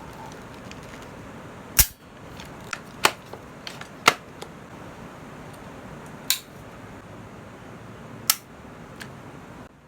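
Sharp clicks from an E&C 105 airsoft gun being worked by hand: about five loud ones one to two seconds apart, with fainter clicks between, over a steady background hiss.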